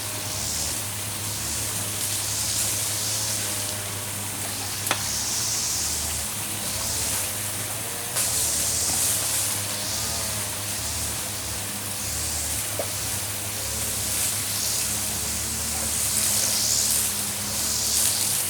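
Running water of a shallow stream, a steady rushing hiss. A sharp knock comes about five seconds in and another about thirteen seconds in.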